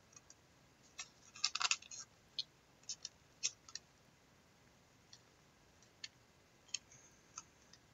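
Faint, scattered light clicks and taps of trading cards and their packaging being handled, with a short cluster about a second and a half in.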